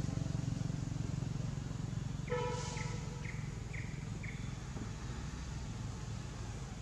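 Steady low rumble, and about two seconds in an animal calling: a short series of five falling notes about half a second apart.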